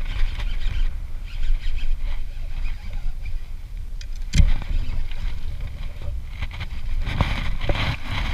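Wind rumbling on a body-worn camera's microphone, with a few sharp knocks from handling the rod and reel and stepping on the rocks. The loudest knock comes about four and a half seconds in, and a cluster follows near the end.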